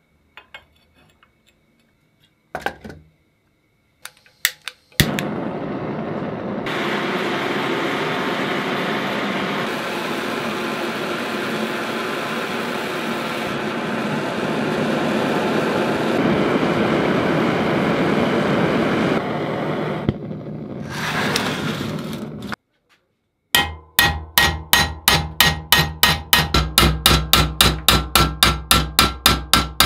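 A few light knocks of the iron wrench being set in a bench vise, then a gas blowtorch burning with a steady hiss for about seventeen seconds. It cuts off, and then the heated wrench is struck with a hammer in the vise in fast, even blows, about four a second.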